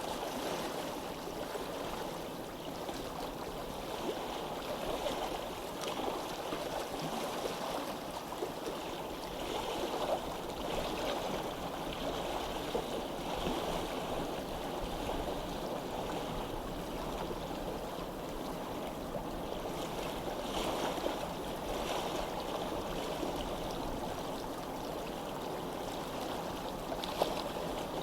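Water flowing steadily in a stream, a continuous babbling rush, with one brief click near the end.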